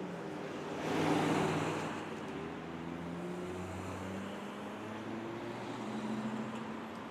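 City street traffic: vehicle engines running steadily, with one car passing close about a second in.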